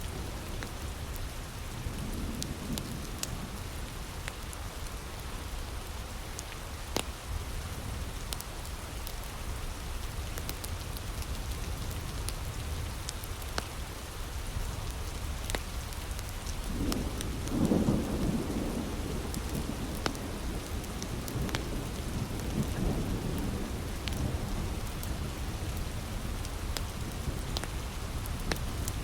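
Heavy rain falling steadily, with a nearby wood fire crackling and popping in sharp snaps throughout. A low rumble swells a little past the middle and fades over a few seconds.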